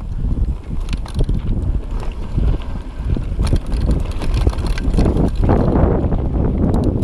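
Wind buffeting the camera microphone on a mountain bike ride, with the tyres rolling over dirt and rock and the bike rattling over bumps. The noise grows louder about two-thirds of the way through as the bike runs down the slope.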